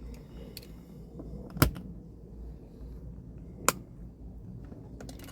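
Two sharp knocks about two seconds apart, over a low steady rumble.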